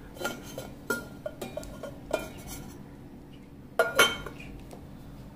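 Spoon clinking and knocking against a bowl and plate while stuffing is spooned out: a run of light knocks, with the loudest two close together about four seconds in.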